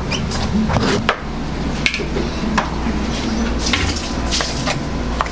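Restaurant kitchen sounds: scattered short knocks and clinks of kitchen utensils over a steady low hum.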